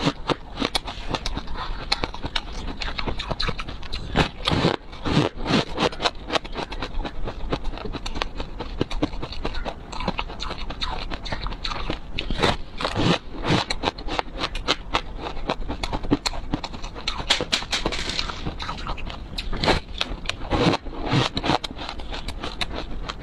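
Close-miked crunching and chewing of a crisp, crumbly puffed snack, a steady run of crackly bites and crunches.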